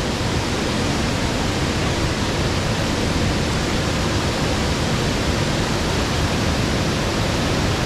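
Paresseux Falls, white water pouring over broad rock ledges, making a steady, even rush of falling water.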